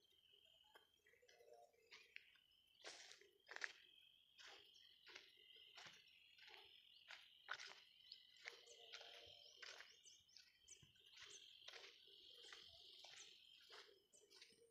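Faint footsteps on dry, clumpy field soil at a steady walking pace, about two steps a second, over a thin, steady high chirping in the background.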